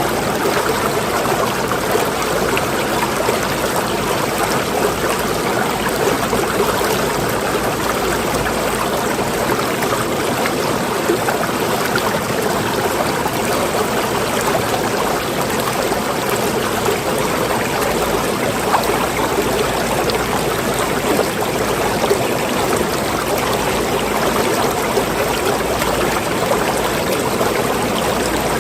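Water flowing steadily, a continuous rushing and trickling with no break or change.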